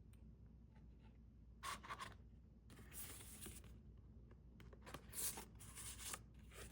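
Paper and cardboard album inclusions being handled: faint rustling and sliding scrapes, in three short spells.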